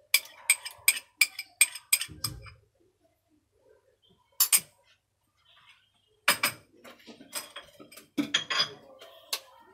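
A teaspoon clinking and tapping against the side of a cup as mustard is scraped off into it. There is a quick run of sharp clinks with a soft thump about two seconds in, a single clink a little later, then another run of clinks and knocks near the end.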